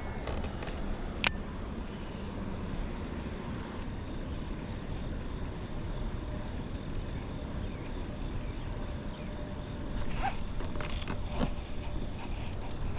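Outdoor river ambience: a steady low rumble with a thin, steady high insect drone over it. One sharp click comes a little over a second in, and a few lighter clicks follow near the end.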